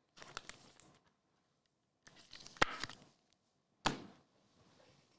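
Trading cards and plastic card holders being handled: short spells of rustling and sliding, with a sharp click a little before four seconds in.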